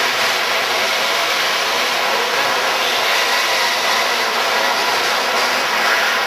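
A pack of outlaw dirt karts racing, their engines merging into one loud, steady drone.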